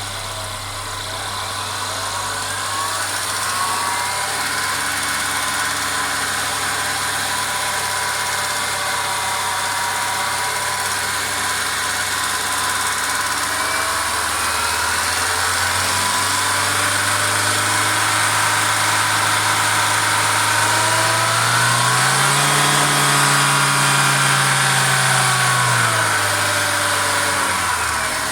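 Mercedes CLA 250's 2.0-litre turbo four-cylinder engine running, its speed climbing slowly over about twenty seconds and dropping back near the end. The owner reports a constant rattling noise from this engine, recorded to diagnose it.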